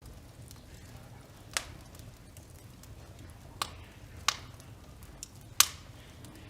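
Wood fire crackling in an open fireplace, with four sharp pops standing out over a low steady background.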